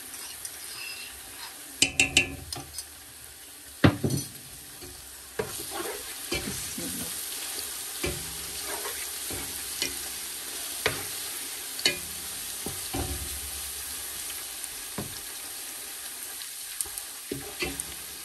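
Chopped onion and garlic sizzling as they fry in a pan, with a spoon stirring and now and then knocking against the pan. The sizzle grows louder about five seconds in.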